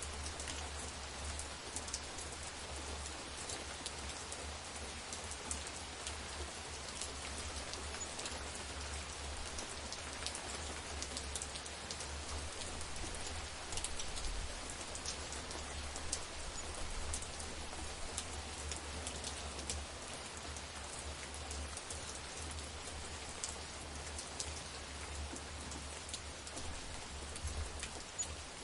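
Steady rainfall, a constant hiss with many individual drops pattering on surfaces, over a low rumble.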